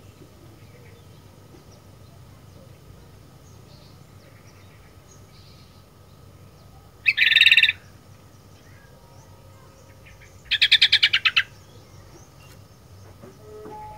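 Sooty-headed bulbul calling: a short loud burst of notes about seven seconds in, then a fast run of about ten repeated chattering notes a few seconds later, over a faint steady background.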